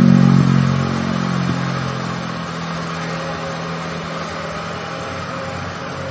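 An engine running steadily, loudest at the start and easing off over the first two seconds, over a steady hiss.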